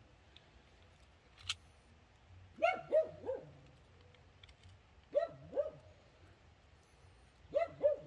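A dog barking in short groups: three quick barks about two and a half seconds in, two more around five seconds, and two near the end. There is a sharp click about a second and a half in.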